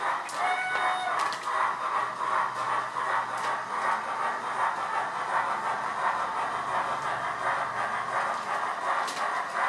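Steam Beyer Garratt sounds from a Loksound V4 decoder in a Heljan model locomotive, played through a small sugar cube speaker: a steady, even rhythm of exhaust chuffs as the loco gets under way, with a brief whistle about half a second in.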